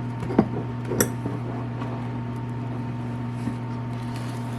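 Steady low hum with a couple of light metal clicks about half a second and a second in, as the last bolt on a Kawasaki KLX 110's oil filter cover is worked out.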